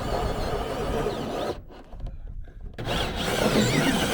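A power drill boring a hole for the boiler's exhaust vent, its motor whine wavering in pitch. It runs for about a second and a half, stops briefly, then starts drilling again near the end.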